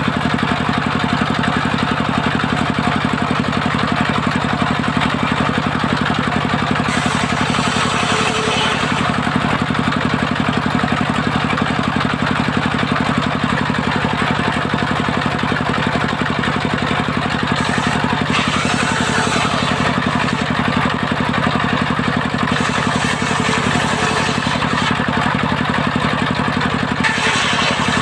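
Circular saw bench running steadily and ripping waru (sea hibiscus) timber into rafters and battens: the blade's cutting noise over the steady drone of the machine's drive. The cutting noise changes a few times as boards are fed through.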